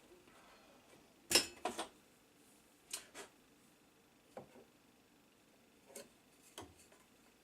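Scattered light clicks and knocks of small hard parts and tools being handled and set down on a workbench, with the loudest knock about a second and a half in.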